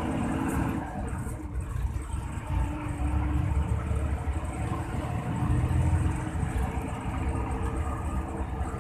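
Hino AK8 bus's diesel engine running with road rumble, the low engine note swelling a few times.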